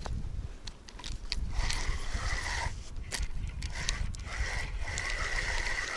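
Fishing reel being cranked to wind in the line: a steady whirring from the reel's gears with scattered clicks, over a low rumble.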